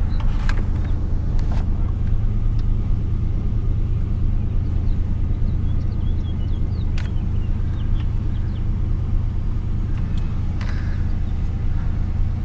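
Ford Ranger engine idling steadily, a constant low rumble, with a few sharp clicks scattered through it.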